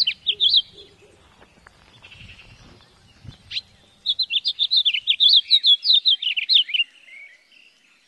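House finches chirping, then one bird singing a long, rapid warbling song from about four seconds in, ending with a lower slurred note about three seconds later.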